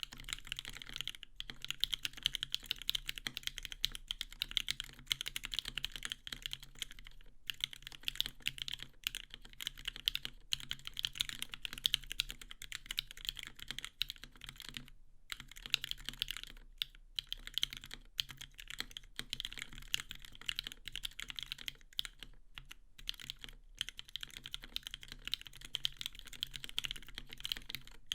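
Continuous fast typing on a Switch Couture Alice mechanical keyboard with an acrylic plate, NovelKeys Cream linear switches lubed with Krytox 205g0 and filmed, and GMK Camping keycaps, with brief pauses a few times.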